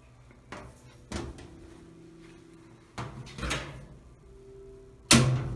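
Top-load washing machine being handled: a few clicks and knocks as its control dial is turned and its lid is worked, ending in a loud bang near the end as the lid comes down.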